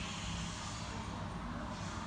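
Steady background noise: a low rumble with a hiss over it, with no distinct event.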